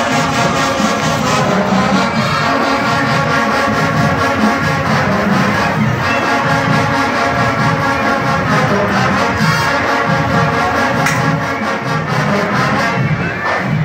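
Marching band playing: the brass section holds chords over a steady drum beat.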